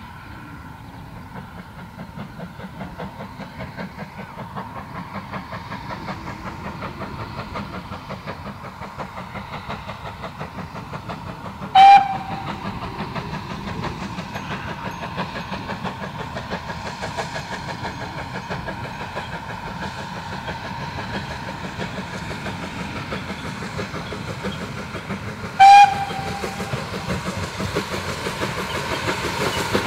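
GWR 4500-class Small Prairie 2-6-2 tank engine working a train under steam, its exhaust beats coming at an even rhythm and growing louder as it approaches. Two short, sharp whistle blasts sound, about 12 seconds in and again near 26 seconds.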